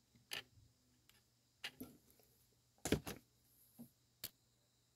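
A handful of small clicks and taps from metal tweezers and thin steel music wire being handled on a hobby cutting mat, the loudest pair about three seconds in.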